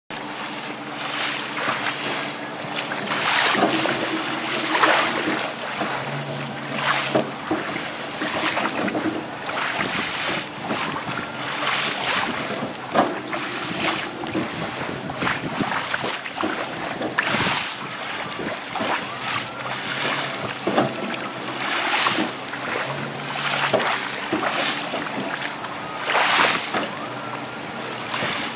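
Small waves washing onto a sandy shore, surging every second or two, with wind on the microphone. Over this, the powered legs of a walking aluminum boat hum in short spells that start and stop several times as they move.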